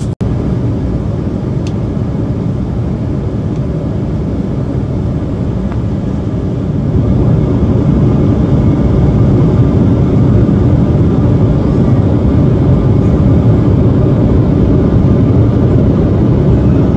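Steady cabin drone of an Embraer 175 regional jet in cruise: a deep, even rush of engine and airflow noise with no distinct tones. There is a momentary dropout at the very start, and the noise gets a little louder about seven seconds in.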